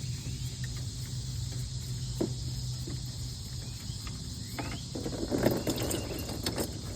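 Scattered light metallic clicks and rattles of a hand wrench on the ATV's drain plug, busiest over a couple of seconds near the end, over a steady chirring of insects.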